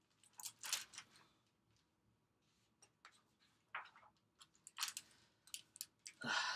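Pages of a picture book being turned and handled: a series of short paper rustles and flaps, the longest and loudest near the end.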